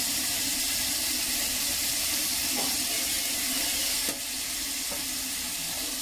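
Sliced yellow cucumber sizzling in a hot frying pan, a steady hiss of frying and steam. A light knock about four seconds in, after which the sizzling is a little quieter.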